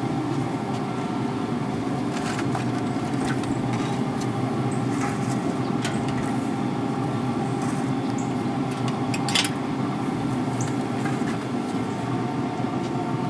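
Steady hum of the Traeger Pro 575 pellet grill's fan running, with a few light knocks as the metal roasting pan is handled and lifted off the grates.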